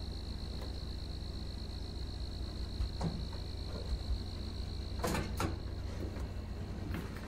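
Door of a Samsung front-loading laundry machine being opened and handled, a few short knocks and rustles as someone reaches into the drum, over a steady high cricket chirring.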